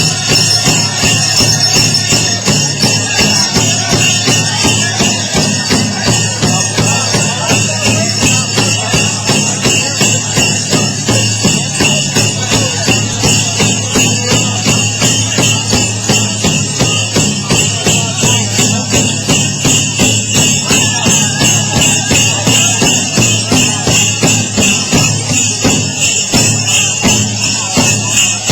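Powwow drum beaten in a steady, even beat, with metal jingles shaking along with it.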